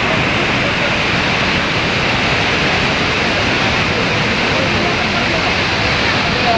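Waterfall: a loud, steady rush of falling water, even and unbroken throughout.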